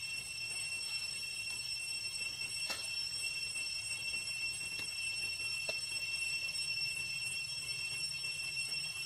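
A steady, high-pitched drone of forest insects with overtones holds over a low background hum. A couple of faint clicks come about three and six seconds in.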